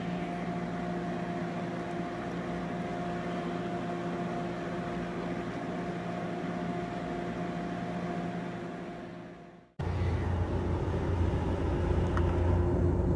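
Steady mechanical hum with a few fixed tones, like an appliance fan running. It fades and breaks off just before ten seconds in, then a louder, deeper hum starts.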